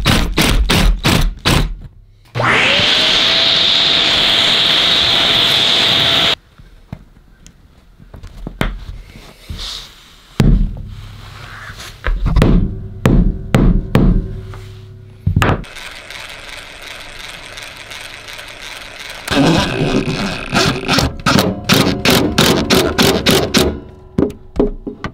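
A hammer tapping a metal T-nut down into a wooden subfloor in quick, even strikes. Then a cordless drill spins up and runs steadily for about four seconds before cutting off. Scattered knocks follow, and near the end comes a dense stretch of rapid rattling from the driver as a bolt is run up into the T-nut.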